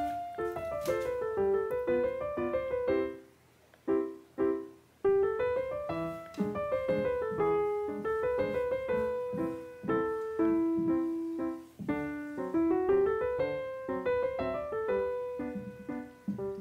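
Background piano music: a light melody over chords, with two short pauses about three and five seconds in.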